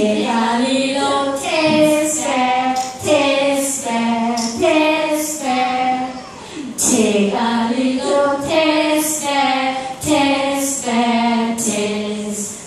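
Several women singing a simple tune together into microphones, unaccompanied, in held notes that step up and down about twice a second.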